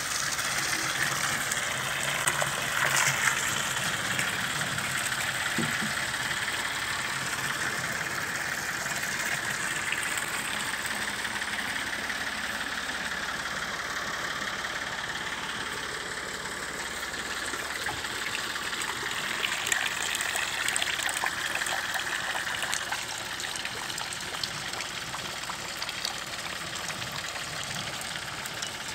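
Water splashing and trickling into a tubewell, with an engine running steadily underneath.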